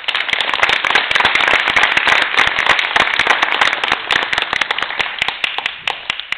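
Audience applauding, with sharp individual hand claps close by. The applause is at its fullest in the first few seconds, then thins and dies away near the end.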